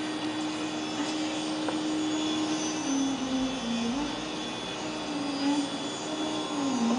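Bamboo flute holding a long, low, slow note in an unmetred classical Indian opening. The note bends down and back up about halfway through and again near the end. The tabla is silent.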